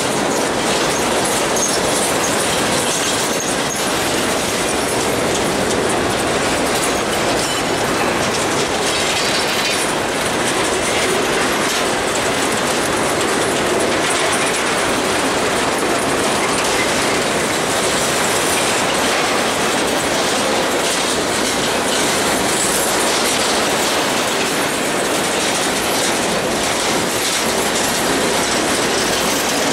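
Freight train cars rolling past close by: a steady, loud clatter and rumble of steel wheels on the rails that does not let up.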